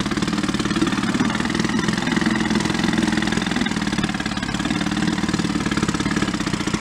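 1937 Sears Waterwitch 2.5 hp single-cylinder two-stroke outboard motor running steadily in a test barrel, its propeller churning and splashing the water.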